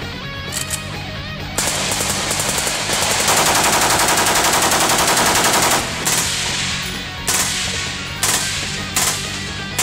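Full-auto fire from an AK-pattern rifle: a long burst of about ten shots a second, running for nearly three seconds and starting about three seconds in. This is followed by several short, sharp bursts about a second apart from a suppressed AR-style carbine.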